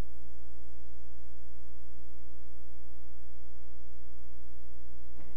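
Steady electrical mains hum with a buzzing stack of overtones on the soundtrack, unchanging in level and pitch.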